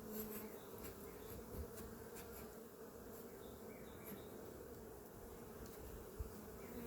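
Honey bees buzzing steadily over an opened hive, a faint even hum, with a few faint clicks.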